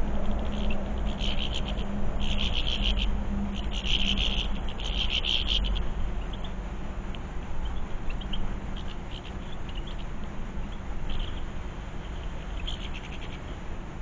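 Small songbirds calling in short rapid trills: four close bursts in the first six seconds, then fainter scattered ones. A steady low hum runs underneath.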